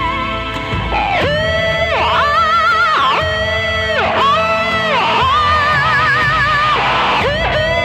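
Music: a lead line of held notes with vibrato that slides down and back up about once a second, guitar-like in sound, over a steady backing.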